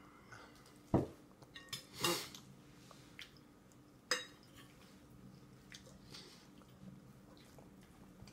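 Plastic baby spoon clinking against a stainless steel bowl a few times, the loudest knocks about one, two and four seconds in, with faint smaller clicks between.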